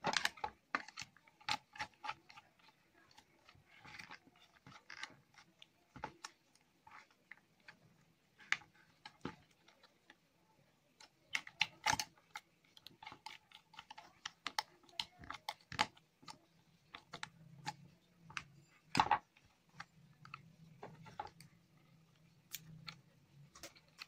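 Irregular light clicks and taps of wires, screws and fingers against a plastic switchboard as it is wired by hand, with a sharper tap at the start and another about three-quarters of the way through.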